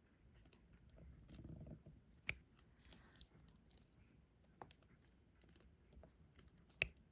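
Faint, sparse clicks and taps of a diamond-painting pen pressing resin drills onto the sticky canvas and picking them from the tray, with a soft rustle about a second and a half in and two sharper clicks, one a little after two seconds and one near the end.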